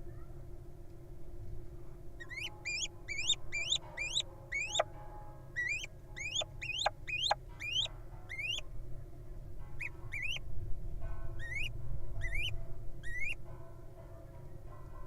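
Little owl giving a series of short, high, rising squeaky calls, about two or three a second, in runs of several with brief pauses between runs, over a steady low background rumble.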